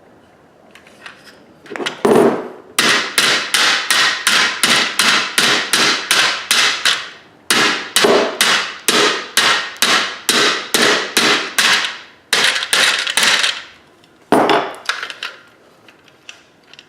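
Hammer blows on a dented metal fire-alarm pull station cover to flatten it out, struck in steady runs of about two blows a second with short pauses, and a last single blow near the end.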